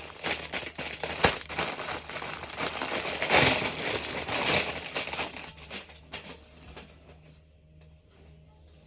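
Plastic packaging crinkling and rustling as it is handled and pulled open, with dense crackles that are loudest about three and a half seconds in and then die away after about six seconds.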